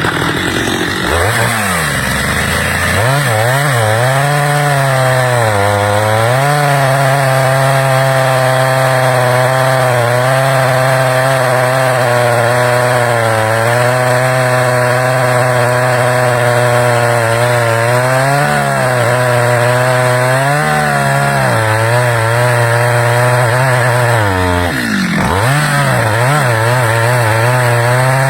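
Stihl two-stroke chainsaw running at high revs while cutting wood, its engine note wavering under load. Several times the revs drop and pick back up: near the start, twice in the middle and again near the end.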